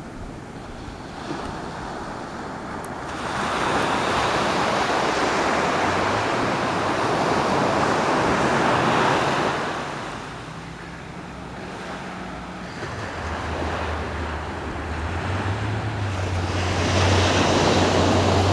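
Ocean surf washing onto the beach, swelling and easing in waves. A low, steady motor hum comes in partway through and grows stronger toward the end.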